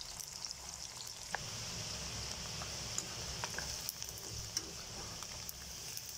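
Small pieces of marinated chicken deep-frying in hot oil: a steady sizzle with scattered pops and crackles.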